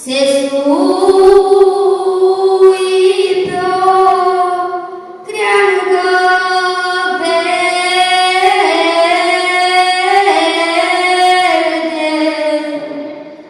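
A solo female voice singing a slow traditional folk song in long held notes that step up and down in pitch, with a pause for breath about five seconds in.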